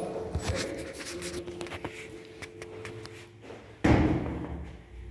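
Rustling and scattered clicks of a handheld camera being moved about, over a steady low hum. A sudden loud thump comes about four seconds in and fades over about a second.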